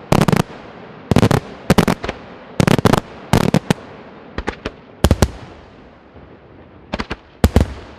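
Aerial firework shells bursting in quick clusters of two or three sharp bangs, each trailing off briefly. The clusters come about every half-second for the first five seconds, then pause, then two more come near the end.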